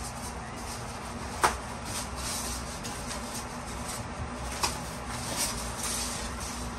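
Rustling of packing material as crib parts are unpacked from their box, with a sharp knock about one and a half seconds in and two lighter knocks later as a painted wooden crib panel is handled.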